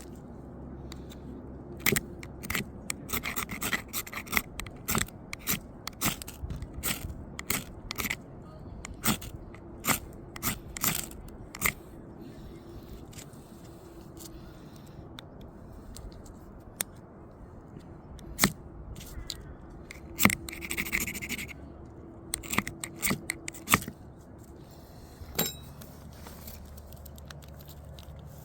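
Repeated short scraping strikes, in quick runs with pauses between, of a ferro rod being struck to throw sparks onto damp tinder while trying to light a fire in wet conditions.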